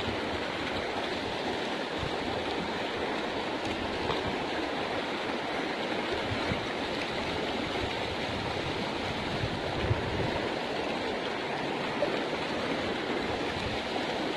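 Fast-flowing river water rushing steadily, the river running high with a large flow after recent flooding.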